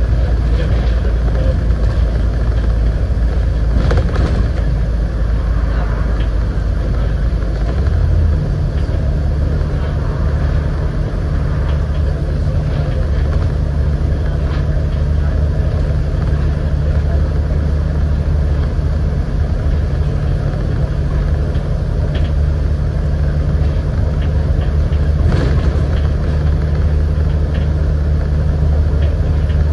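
Scania N94UD double-decker bus engine running as the bus drives along, a steady low drone. Its pitch steps up about eight seconds in and then holds, with two light knocks, one about four seconds in and one near the end.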